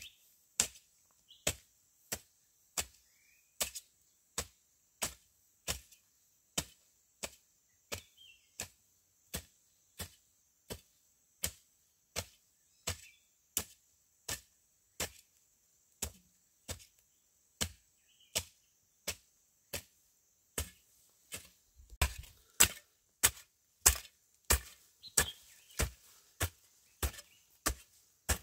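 Steady rhythmic chopping with a blade, about three strokes every two seconds. About 22 seconds in the strokes come harder and faster. A steady insect drone and a few bird chirps run behind.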